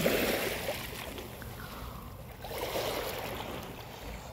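Small sea waves washing up on a pebble beach, two surges about two and a half seconds apart.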